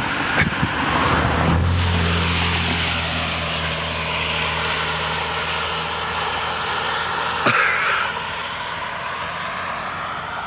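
A steady engine drone over a broad rushing of wind and road noise, as from a car driving along. It starts about a second and a half in, with a sharp click just before and a short burst about three quarters of the way through.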